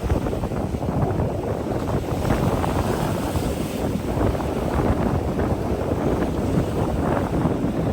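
Strong wind blowing across the microphone, a loud, steady low rumble with gusts.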